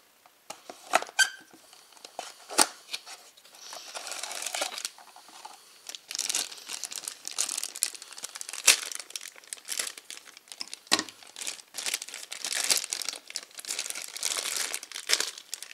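A few sharp clicks and snaps as a cardboard toy box is handled and opened, then, from about three seconds in, the crinkling and crackling of a shiny black plastic blind-box bag being worked and pulled out of the box.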